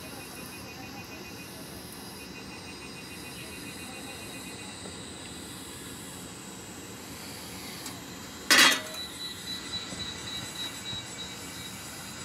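A thin stream of hot water trickles into a paper drip-bag of ground coffee hung on a stainless steel cup, over a steady hiss. About two-thirds of the way through comes a single loud, sharp metallic clink that leaves a high ringing note, followed by a few softer knocks.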